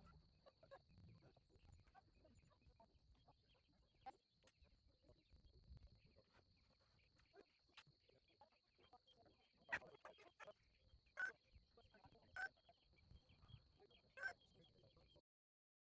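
Faint steady high-pitched chirring of crickets, with a few short sharp sounds about a second apart in the second half; the sound cuts off just before the end.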